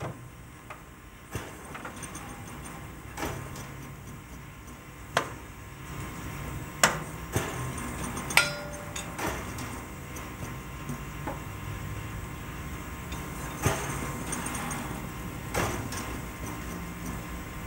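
Hammer tapping the metal parts of a steam locomotive's running gear in a pre-departure inspection: about nine sharp taps at irregular intervals, a few ringing briefly. The driver is listening to the ring of each tap for loose nuts or hairline cracks.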